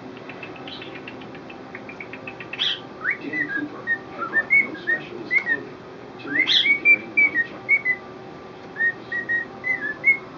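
Male cockatiel whistling its courtship song: a rapid run of short chirps in the first couple of seconds, then strings of short warbled whistle notes, some sliding upward.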